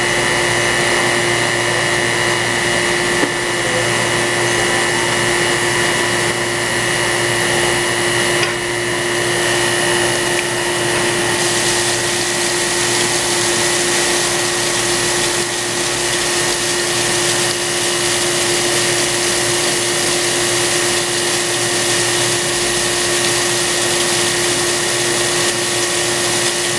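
CNC cylindrical grinder running steadily during straight grinding of a steel shaft: a constant whine from the spinning grinding wheel and machine drives. Partway through, a hiss of coolant spraying onto the wheel and workpiece joins in.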